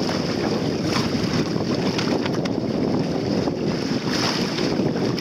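Wind buffeting the microphone over the rush and lap of water along the hull of a small sailboat under way, a steady noise with no breaks.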